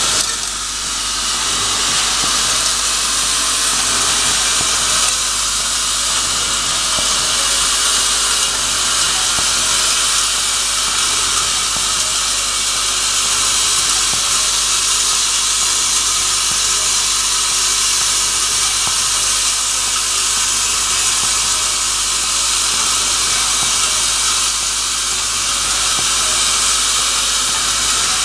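Hardware packing machine running with its vibratory bowl feeders: a steady, dense, hiss-like chatter of small metal screws and fittings vibrating through stainless-steel bowls and chutes.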